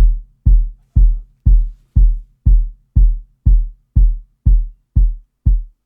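Sub kick drum sample repeating in a loop, two deep hits a second, each with a decaying tail. Near the end the tails get shorter as the sample's volume fade is brought down, cutting off the tail of the sub.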